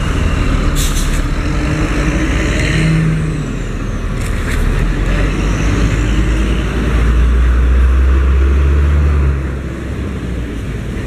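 Large tour buses driving past on a road, engines running. One passes close about seven seconds in, and its low rumble is loudest for about two seconds before dropping away.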